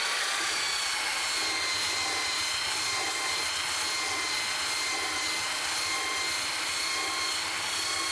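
Handheld belt sander with a coarse 40-grit belt running at full speed across glue-smeared maple boards. A steady high whine rides over the grinding hiss of the belt on the wood and dried glue.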